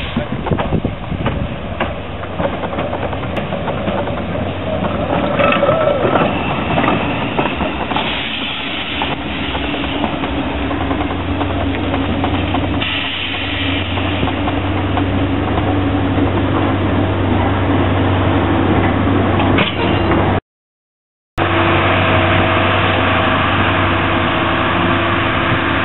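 Small steam tank locomotive working slowly past at close range, its running gear and exhaust giving irregular strokes, with a steady low drone building from about ten seconds in. After a one-second dropout about twenty seconds in, a diesel locomotive idles with a steady drone.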